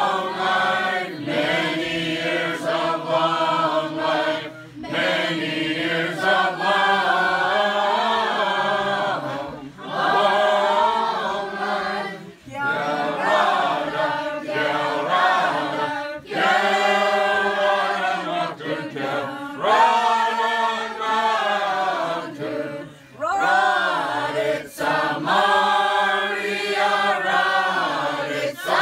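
A group of voices singing an Orthodox Christmas carol unaccompanied, in long phrases broken by a few short breaths.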